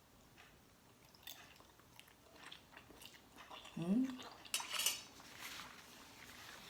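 Light clinks and scrapes of a spoon against a dish while eating. A brief vocal sound comes about four seconds in, followed right after by a louder, short scrape.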